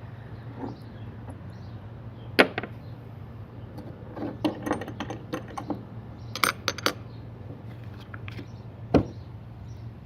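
Metal parts of a drill press XY table and its hardware being handled: irregular clinks and knocks, a sharp one about two seconds in, a cluster of clatter in the middle and a last knock near the end.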